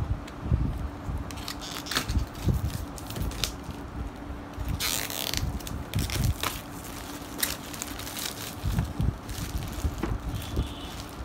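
Clear plastic shrink-wrap being slit with a box cutter and peeled off a cardboard headphone box, crinkling and crackling in short bursts, with the densest burst about five seconds in. Light knocks come from the box being handled on the table.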